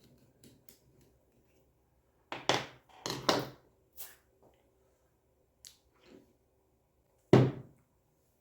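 Steel parts of a three-jaw lathe chuck knocking and clinking as the chuck is taken apart: a few clunks between about two and three and a half seconds in, lighter clicks, and one louder knock near the end.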